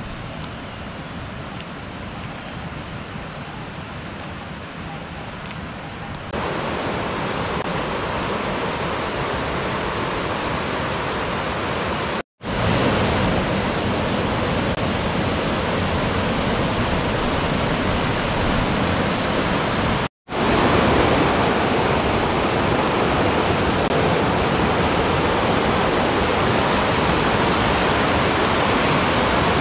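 Steady rush of a fast mountain river tumbling over rocks. It is quieter at first, gets louder about six seconds in, and cuts out briefly twice.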